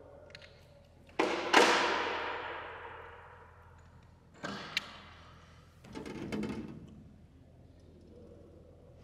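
Metal knocks and rattles from a light aircraft's tailwheel steering assembly with its coil springs as it is handled. A sharp double knock about a second in rings away over a couple of seconds. A shorter knock with a high ping follows in the middle, and a brief rattle comes about two-thirds of the way through.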